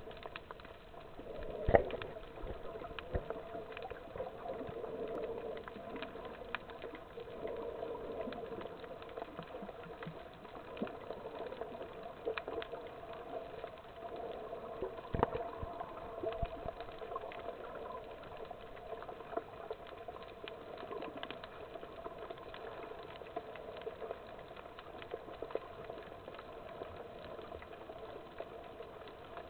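Underwater sound picked up by a submerged camera: a steady muffled wash of noise scattered with many small clicks and crackles, with a sharper knock about a second and a half in and another about fifteen seconds in.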